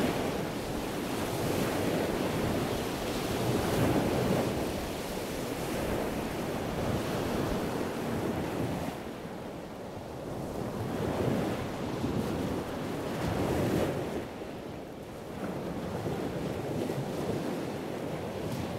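Sea surf washing in, a steady rush of water that swells and ebbs every few seconds.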